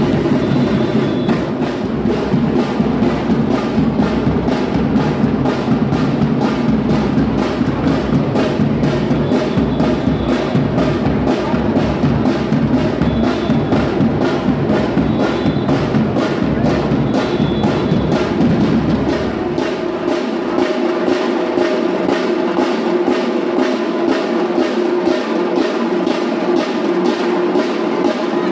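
Batucada percussion ensemble playing a steady, fast drum beat. About two-thirds of the way through the deep bass drums drop out, leaving the higher drums and percussion.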